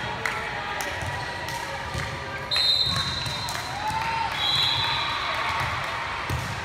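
Referee's whistle blowing in a gymnasium: a long blast about two and a half seconds in, then a second, slightly lower blast about a second later. Under it are the voices of players and spectators and scattered knocks of a ball bouncing on the court floor.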